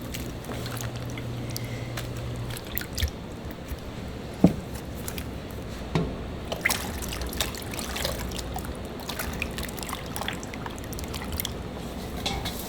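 Liquid trickling and dripping, with scattered sharp clicks and knocks of kitchen work throughout. A low steady hum stops after about two and a half seconds.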